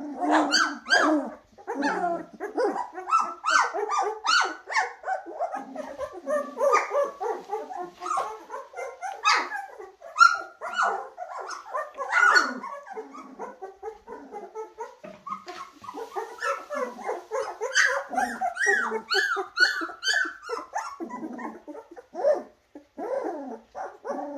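A litter of young golden retriever puppies crying, many short high-pitched cries overlapping one another with hardly a pause.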